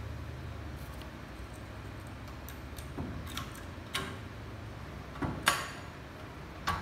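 Key-ring jingles and a series of sharp metallic clicks as the emergency key is inserted and turned in the lock of an Aifeibao electronic steel safe and its round door knob is turned. About five clicks, the loudest about five and a half seconds in.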